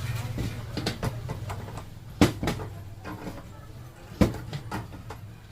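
A few sharp knocks and clicks of hard parts being handled while a heater is worked on, the loudest about two seconds in and about four seconds in, over a low hum that fades away.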